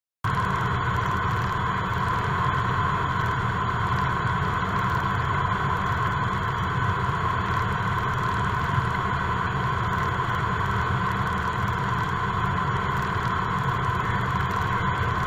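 Steady drone of a Cessna light aircraft's piston engine and propeller, with airflow noise, heard inside the cockpit in flight. It cuts in abruptly just after the start.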